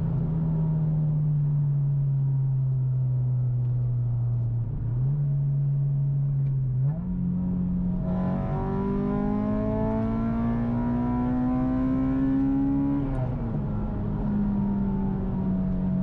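Acura RSX Type S's 2.0-litre K20 four-cylinder with aftermarket headers and exhaust. Its pitch eases down at first, jumps up twice a few seconds in, then climbs steadily for about five seconds under acceleration. The pitch falls back sharply about 13 seconds in and runs steady to the end.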